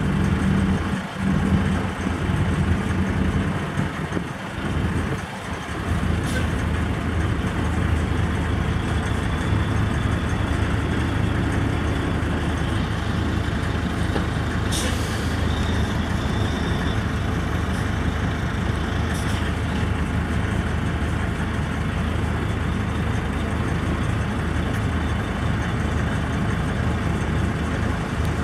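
Semi-truck diesel engine idling steadily, with short hisses of released air from the truck's air system about midway through.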